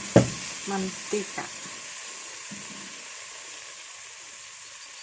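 Chicken longanisa frying in a pan of oil with a steady sizzle. A single sharp knock comes just after the start.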